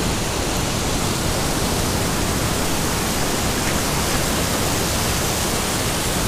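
Steady rushing noise of falling water: a small waterfall pouring over a rock ledge onto beach cobbles, blended with the nearby surf.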